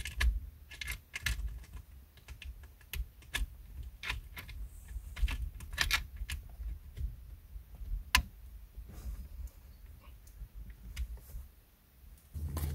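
Irregular small clicks and rattles of plastic and metal parts as a headrest mounting bracket is fitted and fastened onto a car seat's headrest posts, with one sharper click about eight seconds in. A steady low hum starts just before the end.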